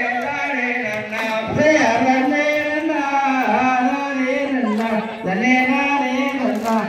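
A voice singing a slow melodic song, with long held notes that waver and bend in pitch.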